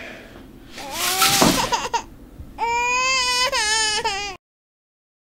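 A newborn baby crying: a short wail, then a longer, louder wavering cry that cuts off suddenly.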